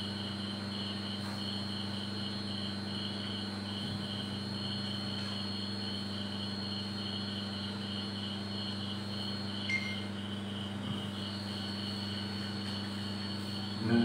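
Insect chirping in an even pulsing rhythm, about three pulses a second, with a steady high whine and a low hum underneath.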